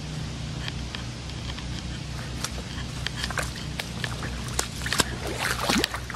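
Floodwater sloshing and splashing in scattered small ticks and drips, busier around five seconds in, with a short rising squeak near the end.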